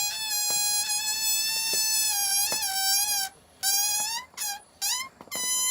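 Inflated balloon deflating through a tightly stretched neck, letting out a high, steady squeal that wavers slightly in pitch. A little after three seconds it breaks into a few short rising squeaks, then one longer squeal near the end.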